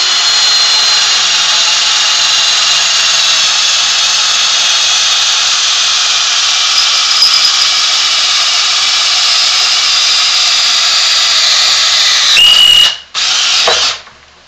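Craftsman cordless drill running steadily as a dull twist bit cuts through aluminum. Near the end the pitch rises as the bit breaks through. The drill stops, runs again for under a second, and stops.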